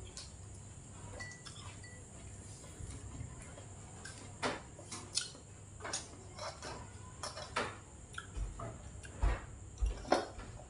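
Scattered light clicks and clinks of dishes and tableware being handled on a dining table, starting about four seconds in, with a few soft low thumps near the end.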